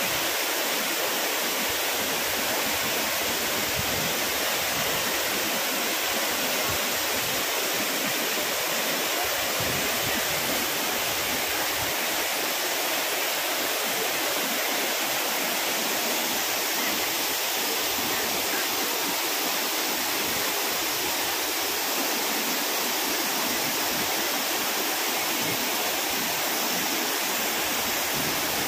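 A cascading waterfall rushing steadily over rock: a constant, even hiss of falling water.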